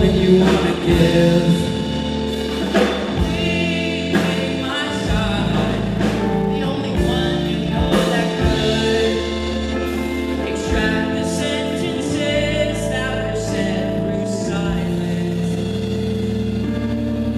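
Rock band playing live: electric guitar, drum kit and sustained low notes under a male singer's vocal.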